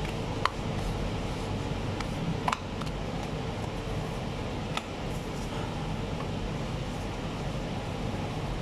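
Steady hum of commercial kitchen machinery, with three short sharp clicks about half a second, two and a half and nearly five seconds in.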